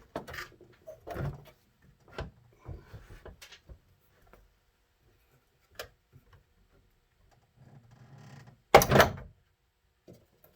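Plastic truck grille parts being handled and fitted together: scattered light knocks and clicks, a pause, then one loud clunk near the end.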